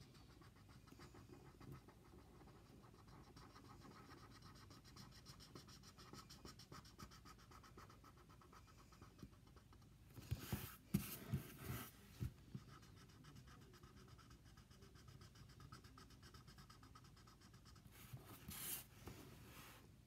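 Felt-tip marker rubbing on paper as a drawing is coloured in, faint, with two stretches of louder scratching, about ten seconds in and again near the end.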